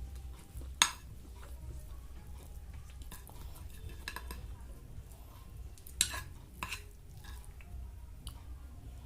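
Cutlery clinking against a plate a few times while food is picked up: one sharp clink about a second in, a couple more around the middle, and two close together past the middle.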